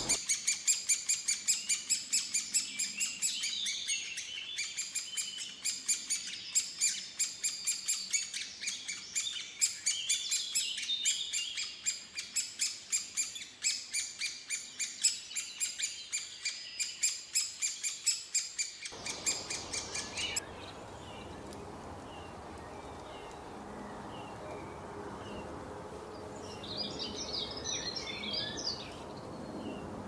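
Great spotted woodpecker chicks begging from the nest hole: a loud, incessant string of short calls, about three a second. After about 20 seconds this gives way to fainter, scattered bird chirps, with a short cluster of calls near the end.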